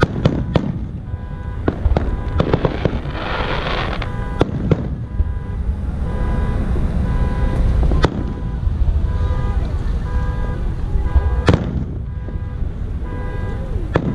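Fireworks display: aerial shells bursting with sharp bangs at irregular intervals, with a burst of crackling about three seconds in and a steady low rumble underneath.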